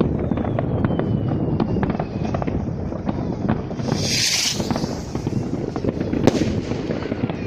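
Many fireworks and firecrackers going off at once, a continuous crackle of pops and bangs. There is a brief loud hiss about four seconds in and a sharper bang just after six seconds.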